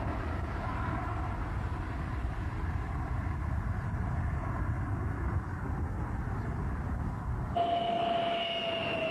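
MiG-25 jet engines: a steady low jet rumble from the aircraft at a distance. About seven and a half seconds in it changes suddenly to a nearer jet with a strong whine that falls slowly in pitch.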